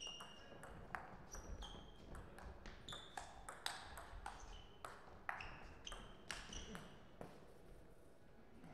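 Table tennis rally: the ball clicking off the paddles and pinging on the table in quick alternation, a few hits a second, for about seven seconds, then stopping as the point ends.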